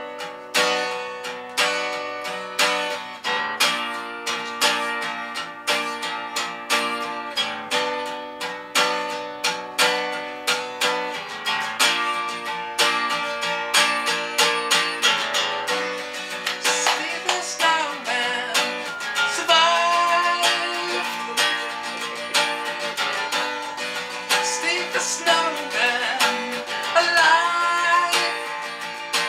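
Acoustic guitar strummed in a steady rhythm. A man's singing voice joins over it from about halfway in.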